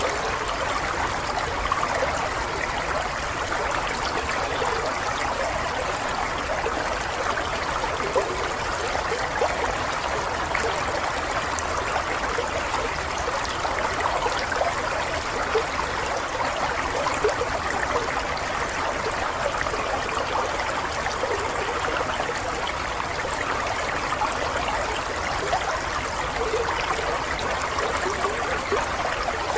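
Water running steadily: a continuous even rush with small gurgles scattered through it.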